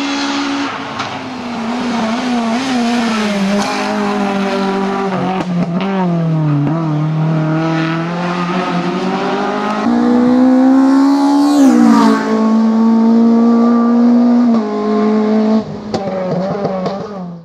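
Renault Clio RS III race car's 2.0-litre four-cylinder engine revving hard up a hillclimb course, its pitch climbing and dropping several times as it accelerates and shifts.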